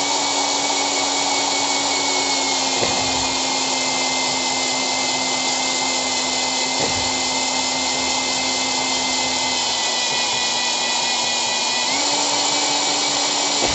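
Electric drill running steadily with a 13 mm twist bit boring into a steel boiler flue pipe under heavy hand pressure. The motor's hum drops slightly in pitch under load a couple of seconds in and picks up again near the end.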